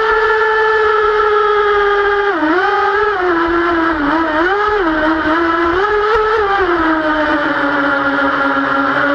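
Twin-engine Apparition RC speedboat running on the water, picked up by its onboard camera: a steady, high-pitched motor whine that dips and rises several times from about two seconds in, then settles at a lower pitch near the end.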